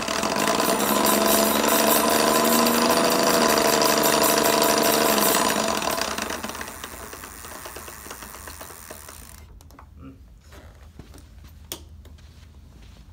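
Bafang rear hub motor of a RadRunner 1 e-bike spinning the lifted rear wheel under pedal assist with a loud mechanical grinding rattle. The owner takes it for the motor's gears grinding. The motor cuts out and the wheel winds down about six seconds in, leaving a few faint clicks.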